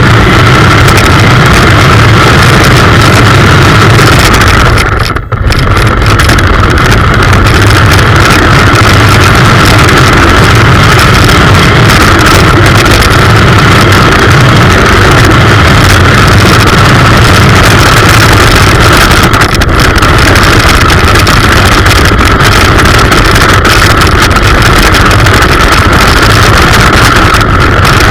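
Electric motor and gears of a 1:18-scale remote-control Hummer H1 toy car whining steadily while it drives, picked up loud and close from on the car itself, with a brief dip about five seconds in.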